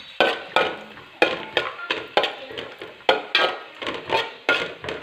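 Metal spatula knocking and scraping against a metal cooking pot in a quick steady rhythm, about two or three strokes a second, each with a short metallic ring, as cashews are stirred in ghee.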